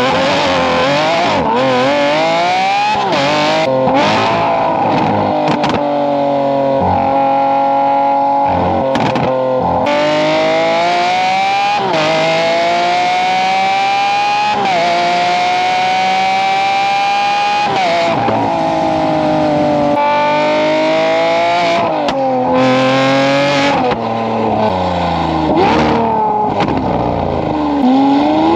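Lamborghini Aventador SVJ's naturally aspirated V12 through an equal-length titanium race exhaust, heard right at the tailpipes: the engine pulls hard again and again, its pitch climbing with each pull and dropping sharply at each upshift or lift-off.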